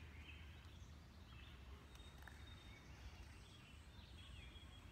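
Near silence: a faint low background rumble with a few faint, short bird chirps, one of them falling in pitch near the end.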